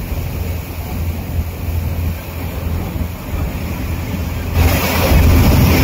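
Passenger ferry's engine running with a steady low hum under the rush of wind and water, the rushing noise growing louder about four and a half seconds in.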